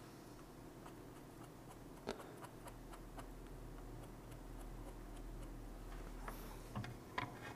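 Faint, scattered small ticks and clicks, one sharper about two seconds in, over a low steady hum: metal tweezers working on a flux-covered BGA chip.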